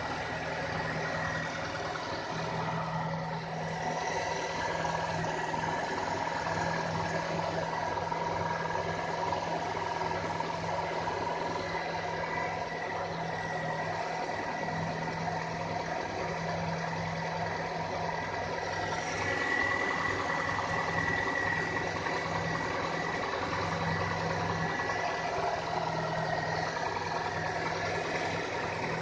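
Renault Koleos 2.5-litre four-cylinder petrol engine idling steadily after a cold start, with the fast even knocking that the owner films as a cold-start knock.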